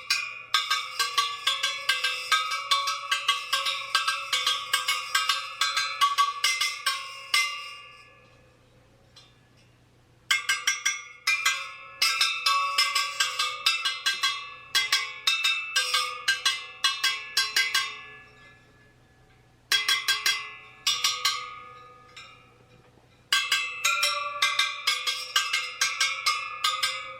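Tensioned steel spokes of a motorcycle rear wheel laced to an Excel Takasago rim, struck one after another in quick runs of metallic pings, each ringing with a clear pitch. This is a tension check by ear: every spoke rings, the sign that the lacing is done and all are tight.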